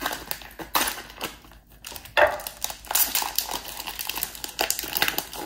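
Plastic vacuum-sealed meat package crinkling and crackling as it is pulled open by hand, in irregular bursts, the loudest about two seconds in.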